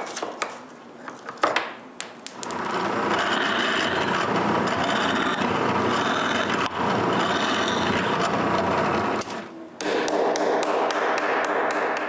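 A few sharp hammer taps on a plywood block, then a drill press running and boring into plywood for several seconds, easing off briefly about nine seconds in before cutting again.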